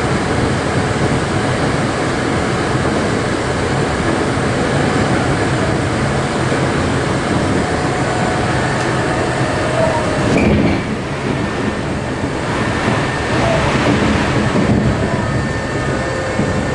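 Tokyo Metro 03 series commuter car running at speed, heard from inside the cabin: a steady rumble of wheels on rail mixed with running noise. It eases slightly about ten seconds in.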